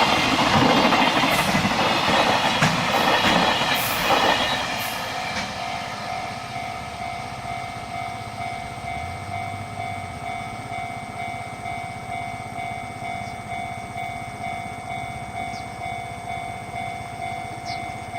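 Freight train wagons clattering past over the rails, fading away about four seconds in. A level crossing alarm then keeps ringing in a steady, evenly repeated ding.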